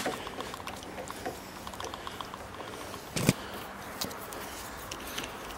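Homemade wood-screw tap turned by a hand bit driver in a pilot hole in hardwood, making faint creaks and runs of rapid light clicks. One sharp knock comes a little over three seconds in.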